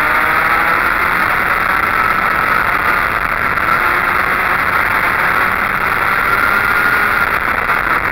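Go-kart engine running at speed, heard loud from on board the kart, its pitch dipping and rising gently through the corners over a steady wash of noise.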